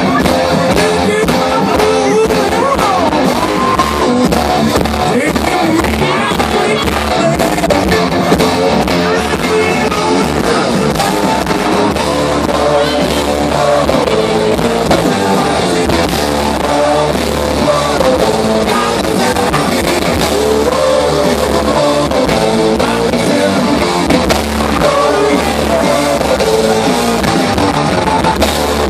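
A rock band playing live and loud: electric guitars, bass guitar and drum kit, with singing, heard from within the crowd.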